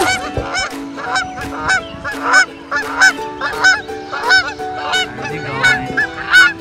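Canada geese honking in a rapid, continuous run of short calls, about three a second, each honk rising then falling in pitch.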